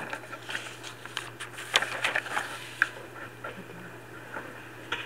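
Scattered soft clicks and rustles over a steady low electrical hum, with one sharper click near the middle; the clicks thin out over the last couple of seconds.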